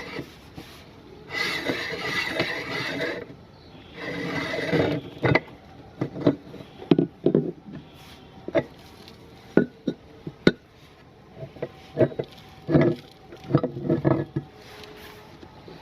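Meat grinder working on a solid item: two stretches of rasping grinding in the first few seconds, then a run of irregular sharp clicks and knocks from the mechanism.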